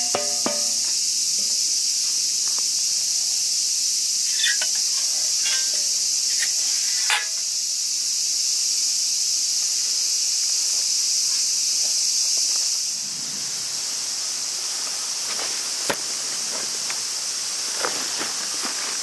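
Summer insects droning steadily at a high pitch in woodland, growing quieter about two-thirds of the way in. A short ringing tap at the very start and a few light clicks scattered through.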